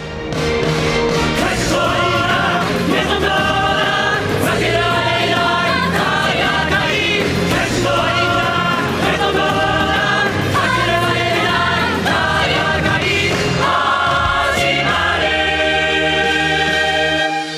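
Stage-musical song excerpt: a group of voices singing together over a band accompaniment, recorded from the live performance. It fades in at the start and fades out near the end.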